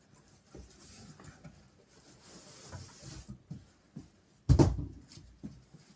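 Cardboard box flaps and packing rustling as a box is opened and a padded saxophone backpack case is lifted out. About four and a half seconds in comes one loud thump as the case is set down, followed by a few light clicks.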